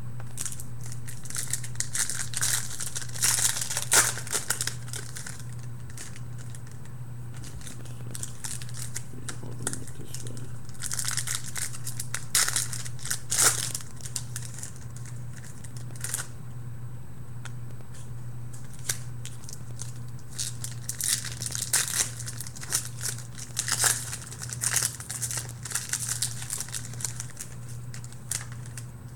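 Trading-card pack wrappers crinkling and tearing open and cards being handled, in three bouts of crackling with quieter stretches between. A steady low hum runs underneath.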